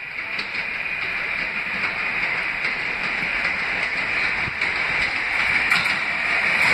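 New York City subway train approaching out of a tunnel: rail and wheel noise growing steadily louder, with a high steady ringing on top.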